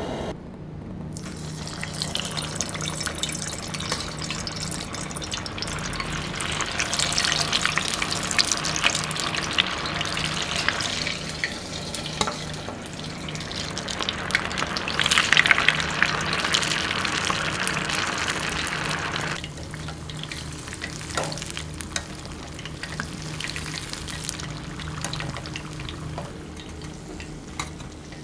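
Food sizzling and crackling as it cooks, a dense spitting hiss that is loudest through the middle and dies down after about nineteen seconds, over a steady low hum.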